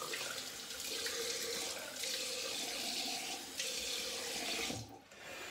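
Cold water running steadily from a bathroom sink tap as the face is rinsed of alum after a shave; the water stops near the end.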